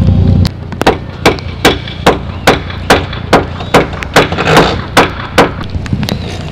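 Hammer striking into the timber frame of a wooden market stall: about a dozen sharp, evenly spaced blows, a little over two a second. A loud low mechanical drone cuts off just before the blows begin.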